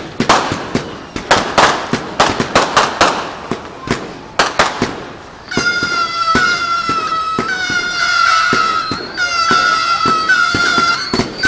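Fireworks going off: a rapid run of sharp bangs for about the first five seconds, then shrill whistling fireworks take over, a series of piercing whistles that each dip slightly in pitch and restart, with more bangs popping underneath.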